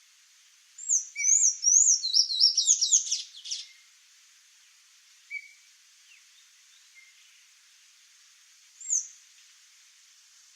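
Sayaca tanager singing a quick, squeaky phrase of high rising and falling notes for about three seconds, then a short note and, near the end, one more single note, over a steady faint hiss.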